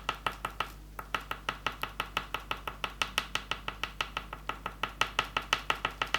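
Oil pastel stick tapped rapidly against paper to dab on dots of colour, about six sharp taps a second, with a brief pause just under a second in.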